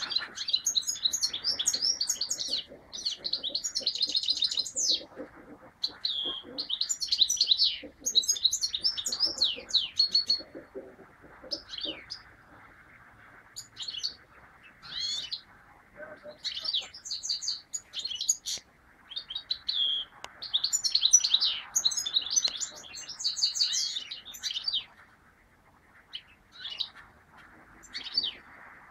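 European goldfinch singing from a small cage: bouts of fast, high-pitched twittering and trills a few seconds long, broken by short pauses.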